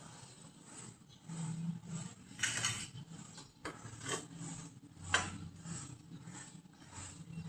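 Scattered clicks and knocks of hand-tool work on parts, a few irregular strikes over a low hum.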